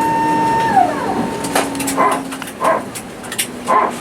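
Airbus A321 engine whine heard inside the cabin, its tone sliding down about two-thirds of a second in while a low hum steps lower. After that come several short, high squeaks, whimper-like, every half second to a second.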